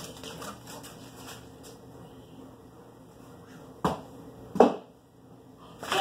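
Two sharp knocks about three-quarters of a second apart, the second louder, from a small ball striking a hard surface in a game of fetch; otherwise faint room noise.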